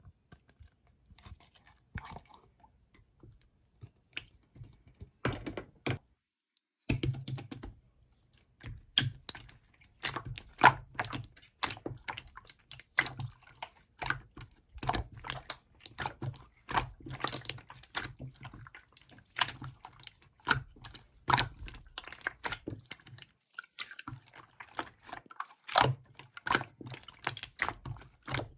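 Slime being squeezed and pressed by hand, giving irregular sharp clicks and small wet pops. They are sparse at first and come thick and fast from about a quarter of the way in.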